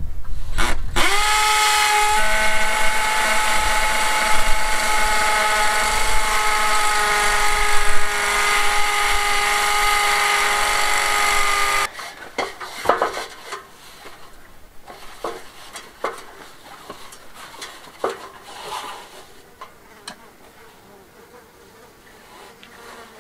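Power drill running at a steady speed for about eleven seconds, spinning up quickly at the start and stopping abruptly, followed by a few scattered knocks and clatters.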